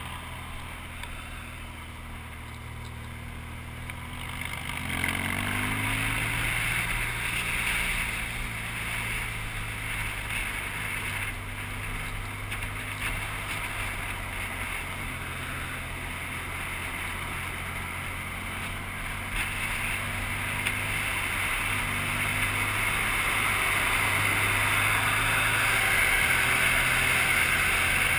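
BMW R1200GS boxer-twin engine running while the motorcycle rides through traffic, picking up speed about five seconds in. Wind rushes over the microphone and grows louder near the end.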